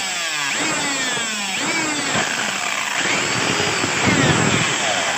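Electric hand drill running, its motor whine sliding down in pitch and picking up again several times as the speed drops and recovers.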